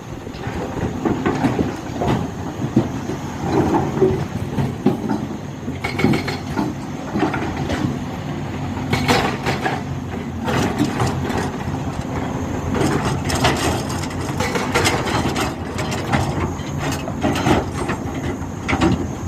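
Heavy diesel machinery running steadily, with frequent irregular knocks and clanks over the engine hum.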